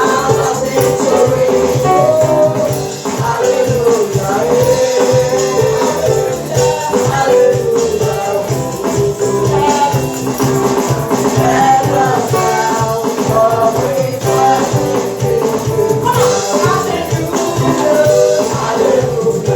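Live church praise-and-worship music: singing over a steady beat with continuous percussion.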